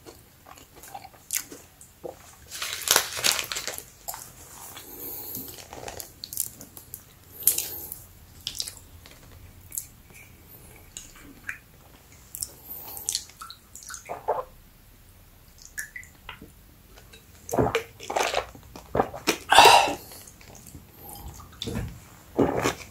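Someone biting and chewing crunchy chocolate-coated crispy bread snacks: irregular crisp crunches and chewing, loudest about three-quarters of the way through.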